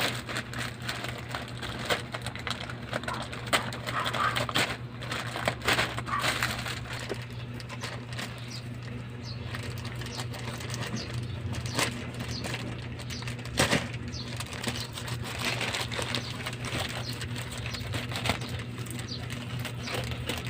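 Irregular clicks, taps and rustles of a parcel's packaging being handled and opened, over a steady low hum.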